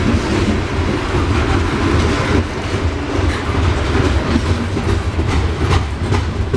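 Coal hopper cars of a Norfolk Southern freight train rolling past close by: a steady, loud rumble with the wheels clacking over rail joints, the clicks more frequent near the end.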